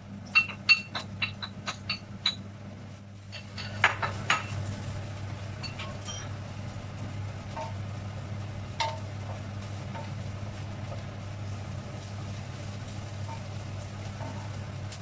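A metal utensil clinking against a pan: about eight quick ringing strikes in the first two seconds and a few more around four seconds in. Then onion and garlic sizzle steadily in hot oil.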